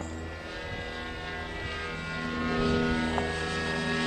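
O.S. FX .61 two-stroke glow engine of a radio-control model airplane running steadily in flight, muffled, its propeller buzz growing louder about two-thirds of the way through.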